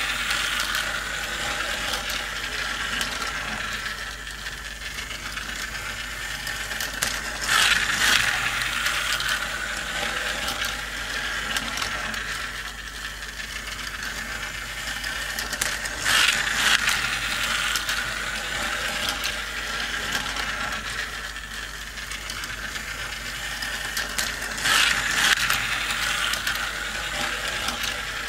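Motorized plastic toy car racing track running: a steady mechanical whir and rattle of its gears as small toy cars clatter round the plastic track. A louder clatter comes about every eight and a half seconds, as a car comes round the circuit.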